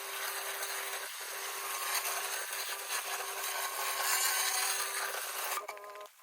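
Pressure washer spraying high-pressure water onto sandstone paving: a steady hiss with a constant hum underneath, cutting off suddenly near the end.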